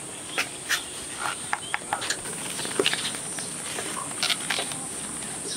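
Steady high-pitched drone of insects in rural greenery, with scattered light clicks and rustles over it.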